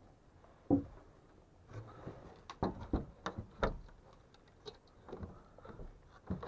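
Metal hand tool knocking and levering against a wooden batten on a plank wall, prying at a fastener: one sharp knock just under a second in, then a quick run of knocks and scrapes from about two to four seconds, and a few more near the end.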